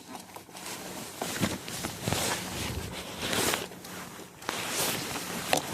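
Rustling and handling of camping gear, with footsteps and a few short swishes.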